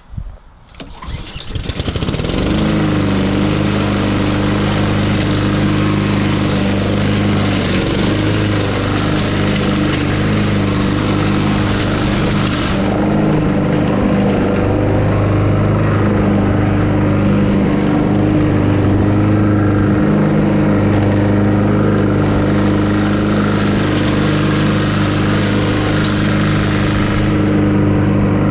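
Lawn mower engine starting and then running steadily. A high hissing whir drops away about thirteen seconds in and comes back for a few seconds near the end.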